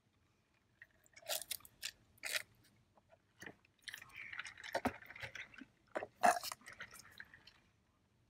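Close-miked chewing of crunchy food in irregular, crackly bursts: a few about a second in, then a longer run from about four seconds until near the end.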